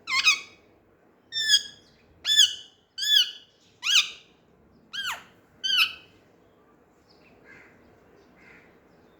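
Young Indian ringneck parrot calling: seven loud, short calls in quick succession, each an arched note that rises and falls in pitch, then a few much fainter calls near the end.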